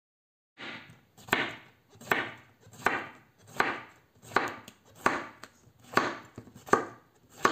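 Chef's knife slicing a zucchini into rounds on a wooden cutting board. About ten even cuts come one every three-quarters of a second, each ending in a knock of the blade on the board.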